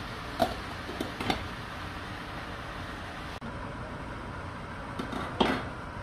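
A glass pot lid clinks against a metal saucepan a few times as it is set on, over a steady hiss. Near the end there is a louder ringing clink of metal or glass cookware.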